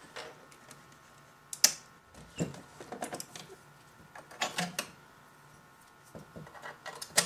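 Scattered clicks and knocks of a 3D-printed plastic cyberdeck case being handled and turned over, the sharpest click about one and a half seconds in.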